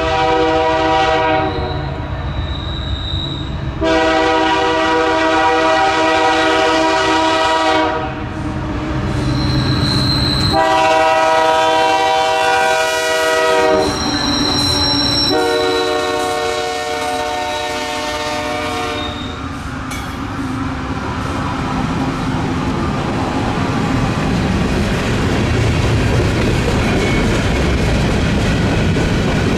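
Diesel freight locomotive's air horn sounding four long blasts, each a chord of several tones. After the last blast the train rolls past with a steady rumble of engines and wheels on the rails.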